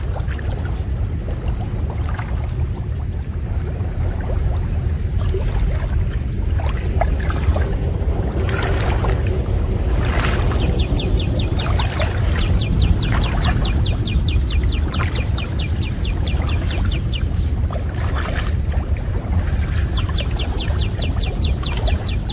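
Water sloshing and splashing around a man wading in shallow muddy water and handling a cast net, over a steady low rumble. From about ten seconds in, a rapid ticking trill of about ten ticks a second runs in two long stretches.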